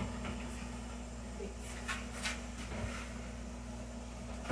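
Steady low hum of a kitchen appliance, with a few faint light clicks about two seconds in.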